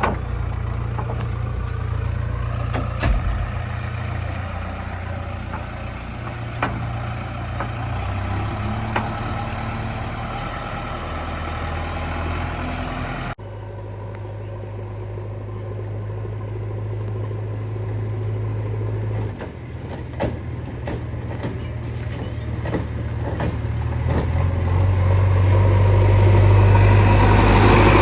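Heavy diesel machinery engine running at a steady low pitch, with scattered sharp knocks. The sound changes abruptly about halfway through, and the engine grows louder near the end.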